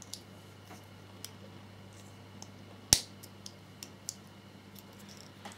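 Two halves of a scale-model motorcycle coolant tank handled and pressed together: light scattered clicks, then one sharp click about three seconds in as the locating pins snap into their holes.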